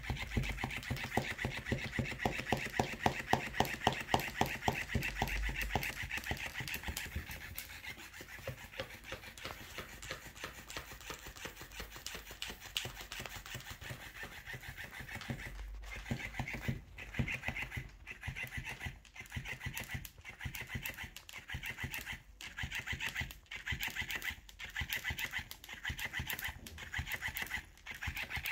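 Motorised flopping-fish cat toy running: its small motor buzzes as the plush tail flaps and slaps rapidly against the table, many beats a second. From about halfway through it flaps in short spurts with brief pauses between them.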